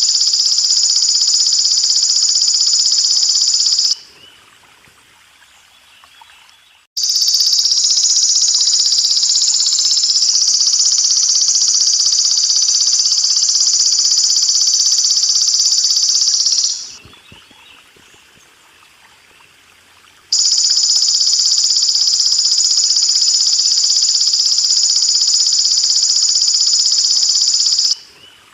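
Belalang emas (golden grasshopper) stridulating in long, even, high-pitched buzzing trills: one bout stops about 4 s in, a second runs from about 7 s to 17 s, and a third starts about 20 s in and stops just before the end. A faint trickle of water fills the gaps between bouts.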